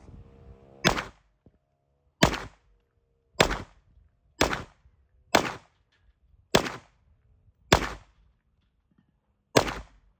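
Eight single gunshots from an AR-9 9mm carbine, fired one at a time about a second apart, with a longer pause before the last: deliberate, aimed semi-automatic fire at a target.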